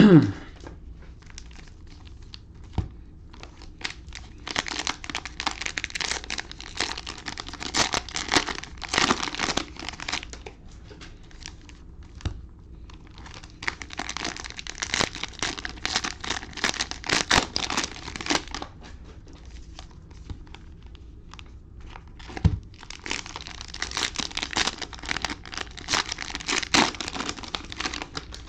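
Cellophane wrappers of trading card cello packs crinkling and tearing as they are ripped open, in three spells of several seconds each.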